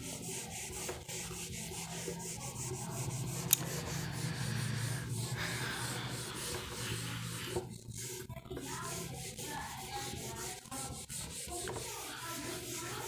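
Continuous rubbing and scratching sounds over a steady low hum, with one sharp click about three and a half seconds in.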